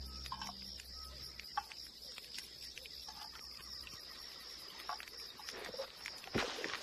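Crickets chirping steadily, a fast pulsing high trill, as night ambience. Low music dies away in the first second, and there are scattered small clicks, then rustling and a thump about six seconds in.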